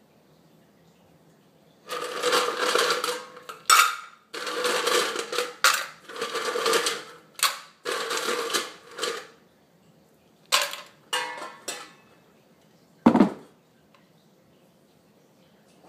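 Ice cubes rattling and clinking against stainless steel as they are tipped from an ice bucket into a metal tumbler, in several bursts over about seven seconds. A few separate clinks follow, then a single dull thump about thirteen seconds in as the bucket is set down on the wooden table.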